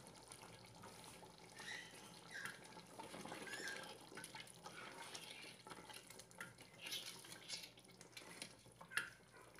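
Wooden spoon stirring a thick curry in an aluminium pot: faint wet squelches and slops with a few light knocks, the sharpest about nine seconds in.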